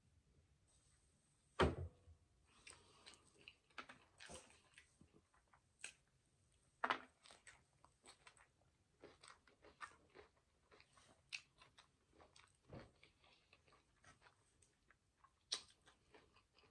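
Biting and chewing a chili cheese hot dog: quiet, irregular wet mouth sounds and small crunches, with a louder thump about two seconds in.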